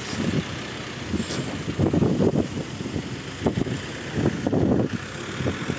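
Heavy diesel vehicle engine running, with irregular louder surges.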